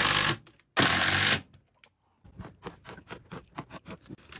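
Power drill driving screws in two short bursts, followed by a run of quick, irregular clicks.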